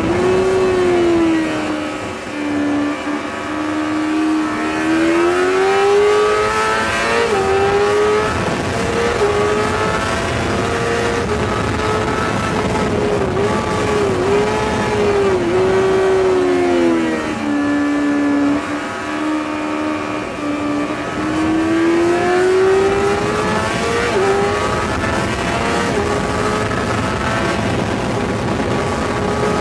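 Yamaha R6's 600 cc inline-four engine at high revs on track, its pitch climbing and stepping down at each gear change, with a run of quick dips as it slows and shifts down about halfway through. Rushing wind noise underneath.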